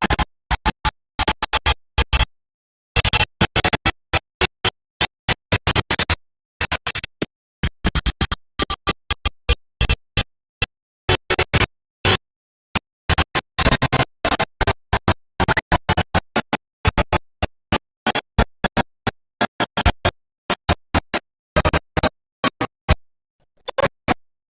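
Online slot game music and sound effects, chopped into many short, sharp bursts with dead silence between them.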